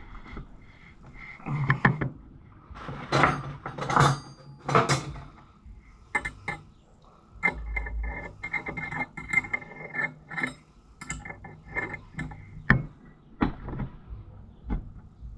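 Hand tools and small metal parts clicking and knocking on a wooden workbench. There are scattered sharp knocks in the first few seconds, then a run of quick metallic clicks for about three seconds in the middle.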